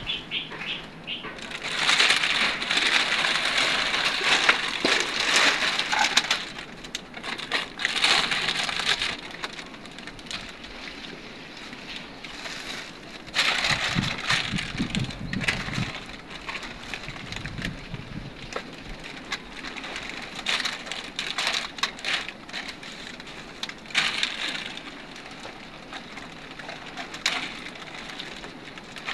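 Woven plastic sack and plastic sheeting rustling and crinkling as they are handled, with crunching and scraping of broken debris being pulled out of a concrete tomb niche. The sound comes in irregular spells, loudest for several seconds early on.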